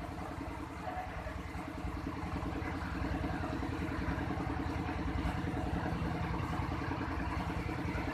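Suzuki Carry pickup's engine idling steadily, its even pulse getting a little louder about three seconds in.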